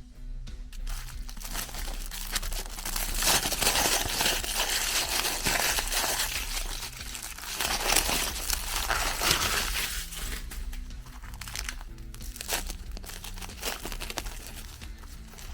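Electric meat grinder crunching through cookies, a dense crackling over a steady low motor hum. About ten seconds in, the crunching thins out to scattered cracks.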